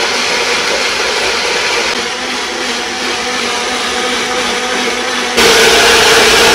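Bullet mixer grinder's motor running at speed, blending whole tomatoes, green chillies, salt and a little water into chutney with the wet-grinding blade. The steady whine gets clearly louder about five seconds in.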